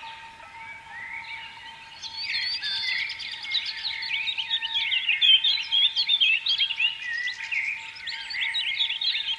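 Many small birds chirping and twittering in quick, dense overlapping calls, louder from about two seconds in, over a steady held tone underneath.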